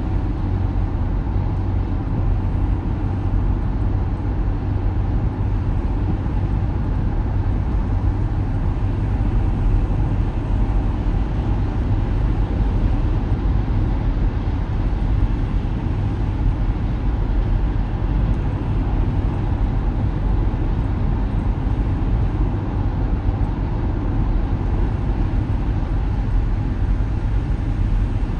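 Steady road noise heard inside a car cruising at highway speed on wet pavement: a constant low rumble with tyre hiss.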